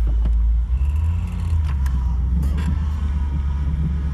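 1982 Camaro Z28's V8 running with a steady low rumble as the car is put in gear and begins to move, its sound changing about a second in. A few light clicks are heard, along with a rubbing from one side that the owner puts down to a newly fitted wheel.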